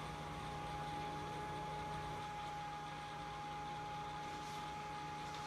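Steady whir of a small electric blower fan with a thin, unchanging whine: the battery-powered fan that keeps an inflatable T-rex costume inflated.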